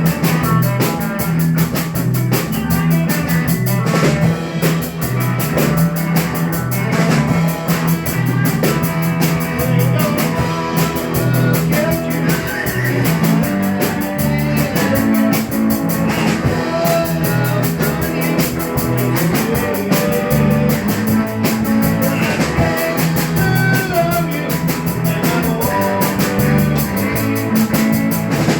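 Rock band playing: drum kit keeping a steady beat with fast, even hi-hat ticks under a stepping bass guitar line, with electric guitar and keyboard on top.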